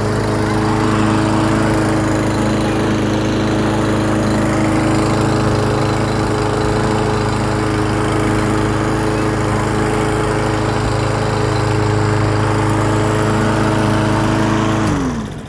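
Craftsman M260 self-propelled walk-behind lawn mower engine, freshly tuned with a new spark plug and air filter, running steadily. Near the end it winds down and stops as the safety bail on the handle is let go.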